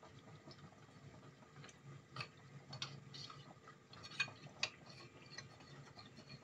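Faint, scattered light clicks of a metal spoon and glass jug against a glass bowl while cornflour is mixed with poured liquid.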